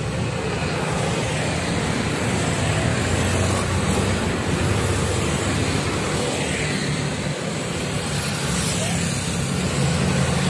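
Steady road traffic passing close by: mostly motor scooters and motorcycles, their small engines and tyres running past one after another, with a car among them.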